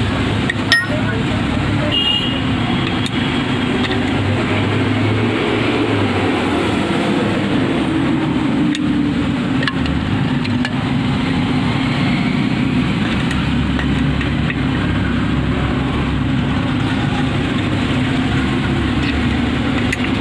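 Steady background road-traffic noise with indistinct voices, and one sharp tap about a second in.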